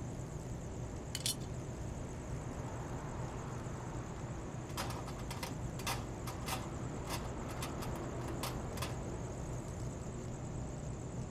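Light metallic clicks and clinks from hands working on a motorcycle's parts: one about a second in, then about a dozen irregular ones between about five and nine seconds in. Underneath is a steady low hum and a thin high hiss.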